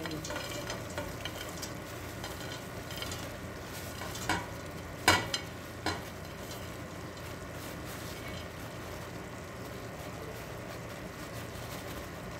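Fried potato cubes sliding off a china plate into a steel pot of simmering beef broth, over a steady hiss from the pot. A few sharp clinks come between about four and six seconds in, the loudest just after five seconds, as the plate knocks the pot's rim.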